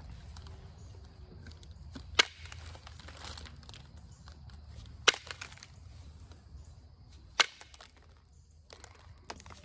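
Flakes snapping off an Onondaga chert point under pressure flaking as the base is thinned: three sharp, separate cracks a few seconds apart, with lighter ticks near the end.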